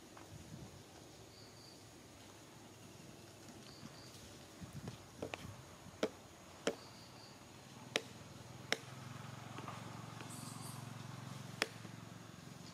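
Faint outdoor ambience: a handful of sharp clicks or taps, mostly in the second half, and a short high chirp, two or three notes at a time, coming back every few seconds. A low hum rises under them for a few seconds near the end.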